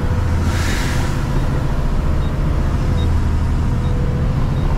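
Garbage truck engine running, a steady low rumble heard from inside the cab, with a short hiss of air about half a second in.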